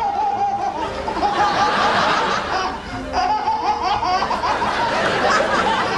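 A baby laughing in high, wavering squeals, in several bouts, over background music.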